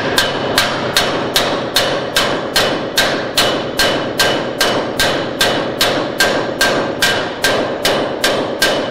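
Hammer striking steel in a steady, even rhythm, about two and a half blows a second, each blow with a bright metallic ring. The blows stop just before the end.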